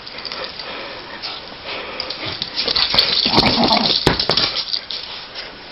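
Scottish terrier growling and scuffling as it worries and tugs at a slipper in play, with a thump about four seconds in.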